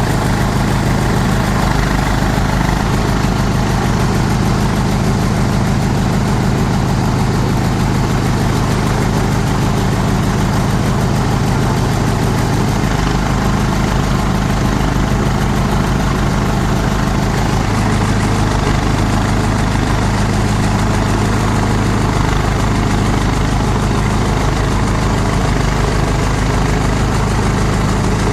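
Multi-purpose chopper-shredder-grinder machine running steadily, its motor drone and the whirr of the machine holding an even level.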